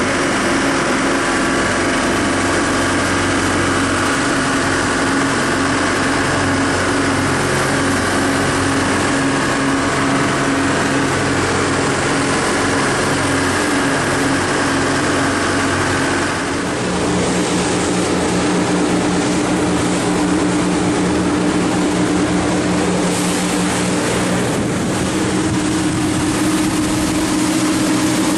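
Twin inboard engines of a 1990 Bimini 29 sportfisherman running steadily under way, a steady drone with rushing water and wind over it. About 17 seconds in, the engine note changes to a lower, stronger hum and the water noise comes forward.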